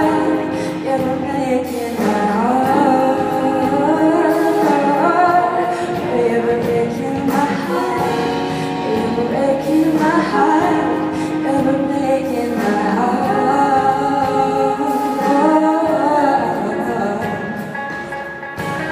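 Live pop song: a singer's melodic voice over band accompaniment.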